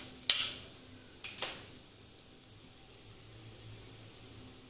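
Beaten egg hitting a hot oiled frying pan of mutton keema kebabs and potatoes: two sudden sizzles within the first second and a half, dying back to a faint steady sizzle.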